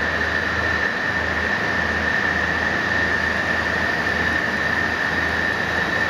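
Extrusion lamination plant running: a steady machine noise with a constant high whine and a low hum underneath.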